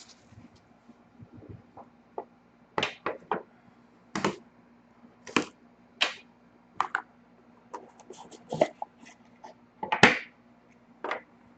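Handling sounds as a sealed trading card box is opened and its cards are taken out. Irregular clicks, taps and short rustles come every second or so, the loudest near the end.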